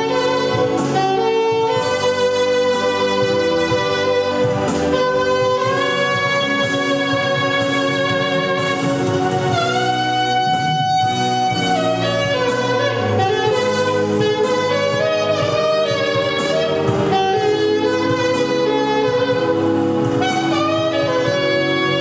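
Jazz saxophone playing a melody of long held notes with vibrato over a backing accompaniment.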